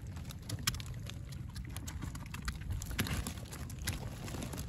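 Scattered light clicks and rustles of hands sorting a stow-net catch of wet leaves, plastic, small shells and crabs on a tarp, over a low steady rumble.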